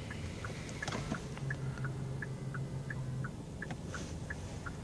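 Power-folding door mirror motor of a 2013 Kia Cerato, heard from inside the cabin, humming steadily for about two and a half seconds as the mirror swings back out, then stopping. A light, regular ticking, about three ticks a second, runs under it throughout.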